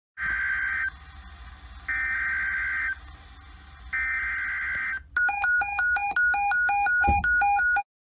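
Three short bursts of warbling digital data tones, each under a second and about a second apart, in the manner of an Emergency Alert System (SAME) header. They are followed by a quick run of electronic beeping tones switching between two pitches, which stops abruptly near the end.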